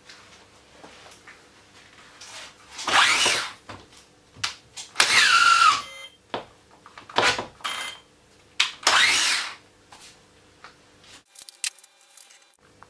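Festool TI 15 cordless drill motor run in three short bursts of the trigger, each lasting under a second and winding down in pitch when released. A run of sharp handling clicks follows near the end.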